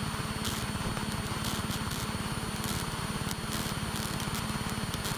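Single-engine light aircraft's engine and propeller droning steadily in flight, heard inside the cockpit, with a fast, even pulsing and a steady hum.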